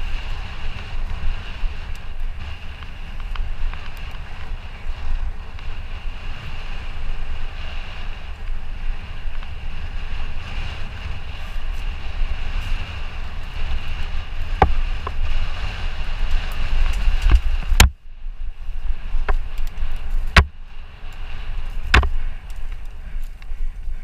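Wind buffeting a mountain bike's action-camera microphone as the bike rolls fast down a dirt singletrack, a steady low rumble. In the second half come several sharp clacks of the bike jolting over bumps and ruts.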